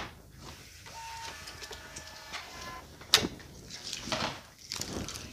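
Label printer running for about two seconds with a steady whine, followed by a single sharp knock just after three seconds in.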